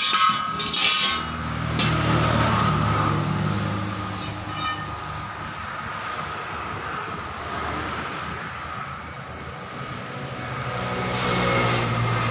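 Sharp metallic clanks in the first second as a steel lock ring is set onto a truck wheel rim, then a steady low mechanical hum with a thin high whine that grows louder near the end.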